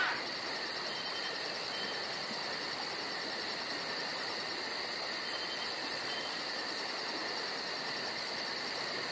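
Crickets chirping steadily as night ambience: a constant high trill with an even pulse of about three or four chirps a second.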